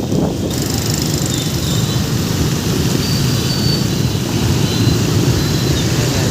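Steady low rumble of motor vehicles and road noise, with a few faint high whines over it.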